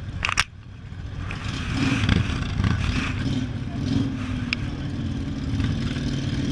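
Motorcycle engines running at low speed, growing louder about a second in and then holding steady. A short crackle of noise comes right at the start.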